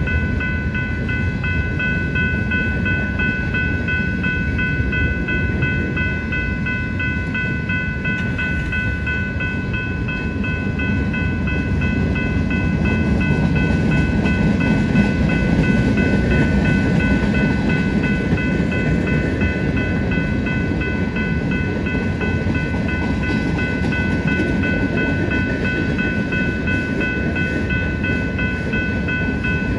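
BNSF freight train of empty flatcars rolling past, a steady rumble of wheels on rail that swells for a few seconds about halfway through. A steady high-pitched whine sits over the rumble.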